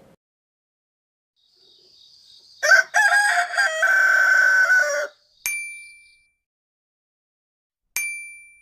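A rooster crows once, a long crow of about two and a half seconds. Two bright ding chimes follow, about two and a half seconds apart, each ringing out briefly.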